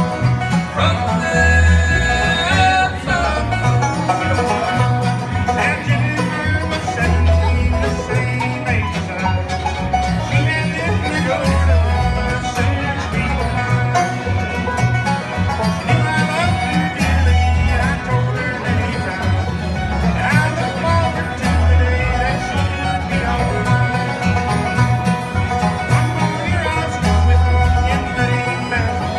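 Bluegrass band playing an up-tempo tune: banjo, guitar and fiddle over a steady bass beat.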